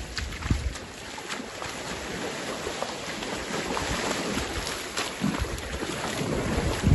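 Shallow seawater sloshing and splashing around a wading angler's legs as he lowers a smooth hound back into the water. Wind buffets the microphone, with a few low thumps, the strongest about half a second in and near the end.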